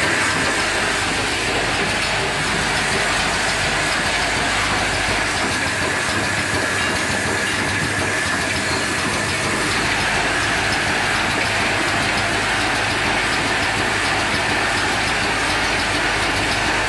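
Automatic flip-top cap assembling machine running, its vibratory bowl feeder rattling plastic caps: a steady, dense clatter that keeps on without letup.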